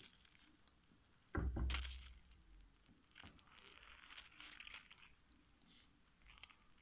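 Hand squeezing a lemon half over a glass bowl: a dull thump about a second and a half in, then a few faint rustles of peel and fingers.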